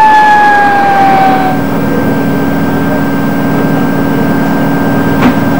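Aircraft engine noise: a whine that falls in pitch over the first second and a half, then a steady drone with a thin high tone above it.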